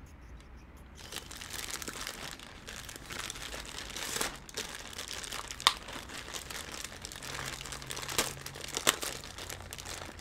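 Plastic packaging crinkling and rustling as a plastic mailer and a clear plastic bag are handled and pulled open, starting about a second in, with a few louder sharp crackles.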